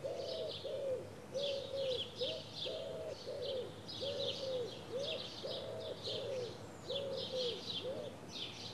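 A pigeon cooing over and over in soft, rounded notes, about two a second in loose phrases, while small songbirds chirp and twitter in quick high bursts.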